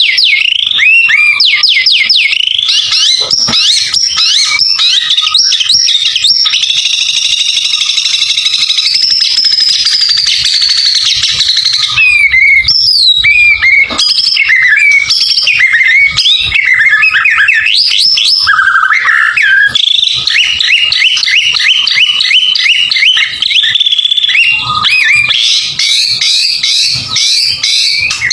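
White-rumped shama (murai batu) singing continuously in a loud, varied song of rapid chirps, trills, sweeping whistles and held notes, packed with phrases mimicked from other birds.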